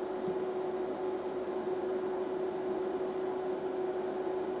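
Steady electrical or machine hum: one held mid-pitched tone over an even hiss, unchanging throughout.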